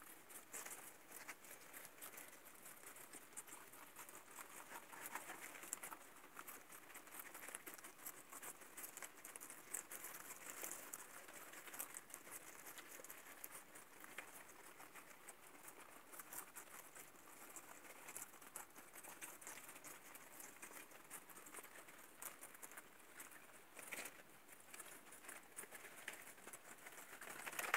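Guinea pigs munching fresh vegetables and shuffling through hay and wood-shaving bedding: a faint, steady crackle of many small crunches and rustles.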